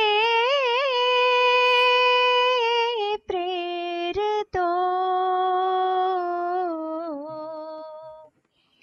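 A woman singing a slow melody in long, drawn-out notes with vibrato and small ornamental turns. She breaks off briefly twice, around three and four and a half seconds in, then the last held note fades away near the end.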